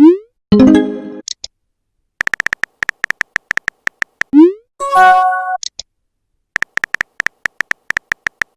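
Phone texting sound effects in a repeating cycle. A rapid run of keyboard tap clicks is followed by a quick rising swoosh as a message is sent, then a short synthetic notification chime with a tiny high blip. The cycle runs twice, with a third run of taps starting near the end.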